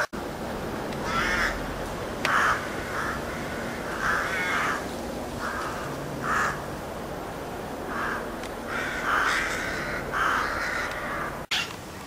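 Crows cawing: a series of short, harsh caws, roughly one a second, some in quick pairs.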